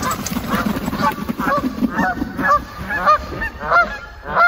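A flock of Canada geese honking over and over as they take off, two or three overlapping honks a second.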